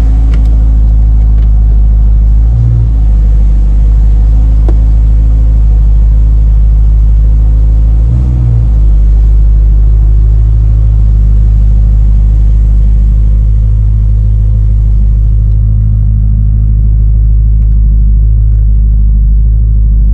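BMW E92 M3's 4.0-litre V8 with an Akrapovic exhaust running at idle, heard from inside the cabin as a steady, loud low hum. The note briefly swells twice, about three and eight seconds in, as the car creeps backwards out of the garage.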